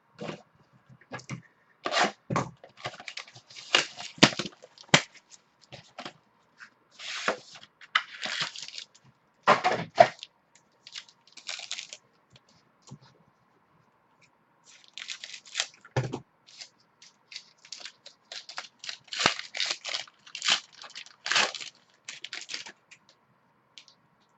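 Football trading cards and their plastic sleeves and packaging being handled: irregular rustling, scraping, clicking and tearing. The sounds come in two spells of activity with a pause in the middle.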